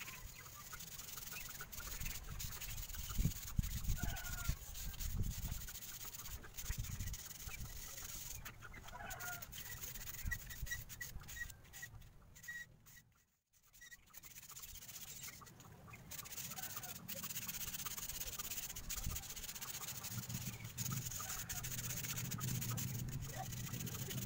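Sandpaper rubbing back and forth along a thin fishing-rod tip, sanding it thinner so the tip bends. Chickens cluck now and then in the background, and the sound drops out briefly about halfway through.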